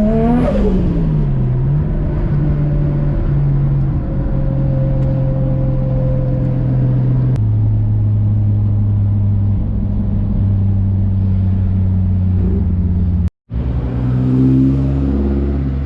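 Built RB25DET turbocharged straight-six of an R33 Nissan Skyline revving up and backing off right at the start, then running at a steady engine speed while cruising. The pitch steps down about halfway through and rises again near the end.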